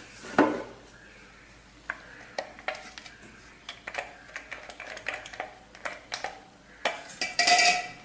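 Stainless steel kitchenware clinking and knocking as a mixer-grinder jar is handled over a steel mixing bowl. A longer, louder metallic scraping rattle near the end comes as the jar is tipped against the bowl to empty the powdered bread.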